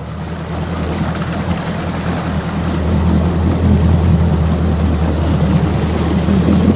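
Mercury Pro XS outboard motor running on a bass boat, a steady low hum with prop wash churning behind. It grows louder over the first three seconds, then holds steady.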